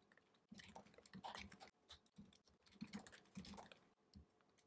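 Faint typing on a computer keyboard: quick runs of keystrokes broken by short pauses.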